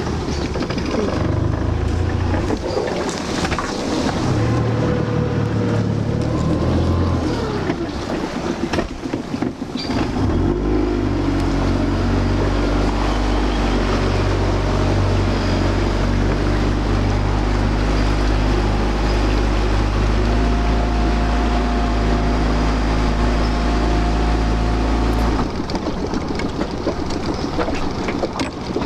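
Small Honda four-stroke outboard motor on a dinghy running under way, its pitch rising and falling with the throttle for the first ten seconds, then running steadily at one speed. Near the end the engine sound gives way to wind and water noise.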